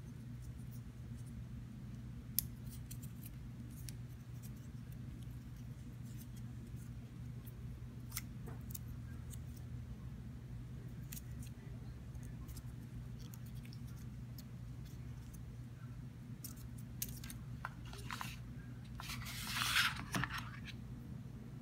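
Scattered small clicks and taps of hands handling the cardboard iPhone 12 box and its Lightning cable, over a steady low hum, with a short rustling scrape near the end as the phone is slid out of its cardboard tray.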